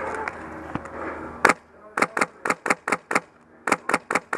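HPA (PolarStar-powered) airsoft HK416 firing a rapid string of about a dozen sharp shots, starting about a second and a half in, in two quick runs with a short pause between.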